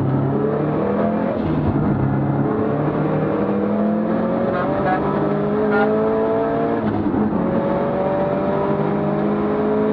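Subaru Impreza race car's flat-four engine heard from inside the cabin, accelerating hard through the gears. The pitch climbs steadily, drops at an upshift about seven seconds in, then climbs again.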